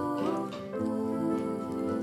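Soft, gentle background music with long held melodic notes.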